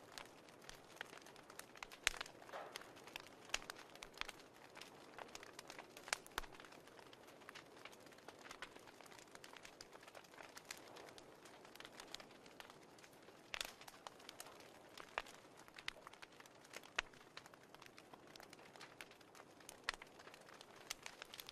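Fireplace crackling, faint: irregular sharp pops and snaps over a soft steady hiss.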